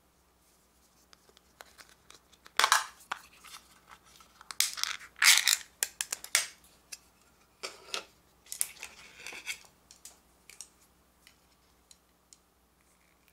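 Ring-pull lid of a small food can cracking open with a sharp pop, then the metal lid peeled back with scraping, tearing sounds in two spells, followed by a few light clicks.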